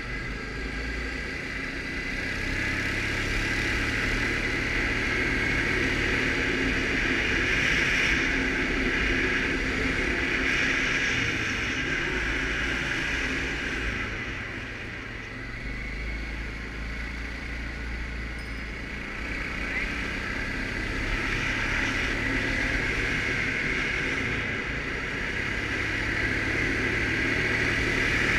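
Suzuki KingQuad ATV engine running steadily under way, easing off for a few seconds about halfway before picking up again.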